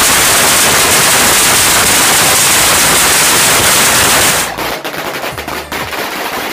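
Firecrackers going off by the hundreds in a very loud, rapid, continuous crackle. About four and a half seconds in, the crackle drops off sharply to a quieter run of separate pops.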